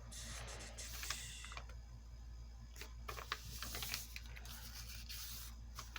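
Paper being handled and folded on a table: soft rustling with scattered light clicks and taps.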